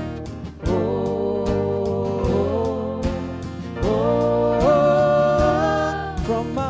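Contemporary worship song performed by a band, a singer holding long notes that slide between pitches over guitar accompaniment.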